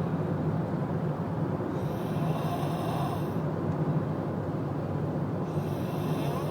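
Snoring in sleep: slow, rhythmic breaths, one roughly every three to four seconds.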